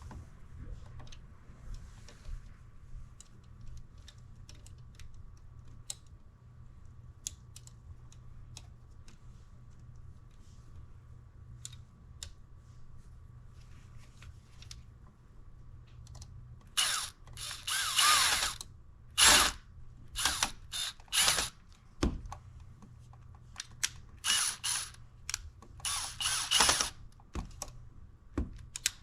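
Faint scattered clicks of handling, then, from about two-thirds of the way in, a screwdriver driving screws in a run of loud, ratcheting bursts of about a second each, likely the outlet being screwed into its box.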